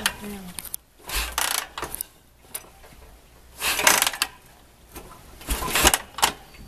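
Custom chopper motorcycle being kick-started: three kicks about two seconds apart, each a short burst as the new, tight engine turns over without catching.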